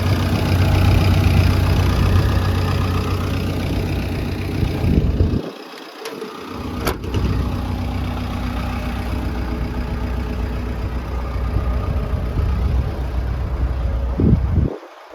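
Diesel engine of a Komatsu PC160LC-7 hydraulic excavator idling steadily, with a single sharp click about seven seconds in.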